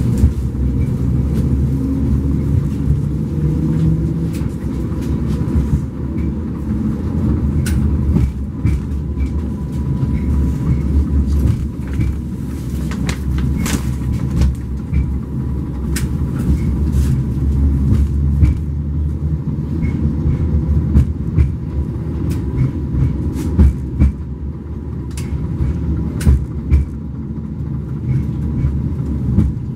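A 71-134K (LM-99K) tram running along its track: a steady low rumble with frequent sharp clicks and knocks, and a faint steady tone.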